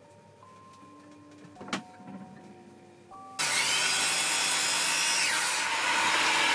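A faint knock and a few soft steady tones, then about halfway through an electric power tool cuts in abruptly and runs steadily at speed, loud with a high whine.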